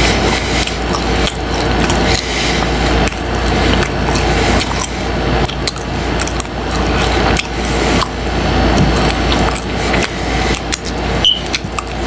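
Close-miked chewing of crunchy fried tripas (beef tripe) in a taco: many rapid, irregular crunches, over a steady low hum.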